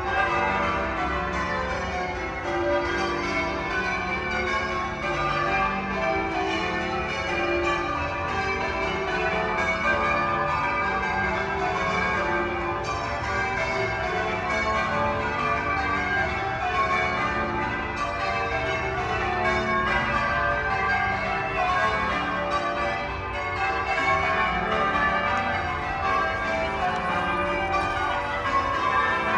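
A ring of twelve church bells being change-rung, the bells striking one after another in a continuous, even sequence of overlapping tones.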